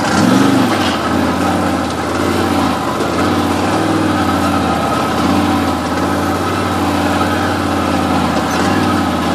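Off-road vehicle engine idling loudly and steadily, its pitch rising and falling slightly with light revs several times.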